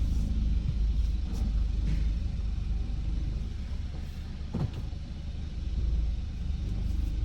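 Car running at low speed, heard from inside the cabin: a steady low engine and road rumble, with a brief falling tone about four and a half seconds in.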